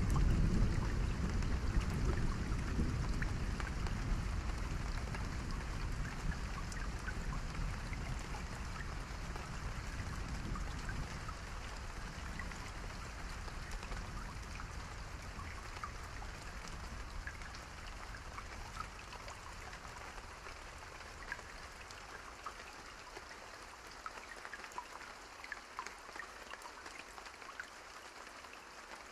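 Steady rain with scattered drops pattering on a surface. A deep rumble of thunder, loudest at the start, dies away over the first half, leaving the rain alone and quieter.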